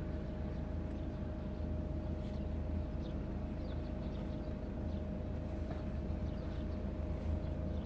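Opel Insignia creeping forward slowly at low speed, heard from inside the cabin as a steady low rumble with a faint steady hum. The car is held to a crawl so the automatic park assist can scan for a parking space.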